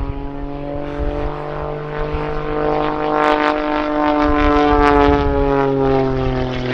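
Pitts Special aerobatic biplane's six-cylinder Lycoming 540 engine and propeller droning in flight. The sound swells to its loudest about five seconds in, then eases off with the pitch dropping slightly as the aircraft passes.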